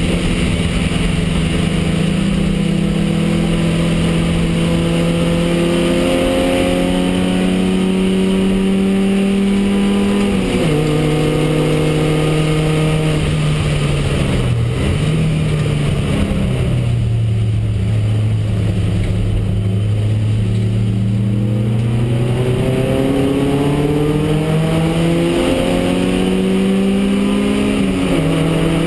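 Porsche 924R race car's engine heard from inside the cockpit under racing load, its note climbing through the revs and stepping down sharply at gear changes about ten seconds in and again near the end. Midway the pitch falls and holds low for several seconds before climbing again.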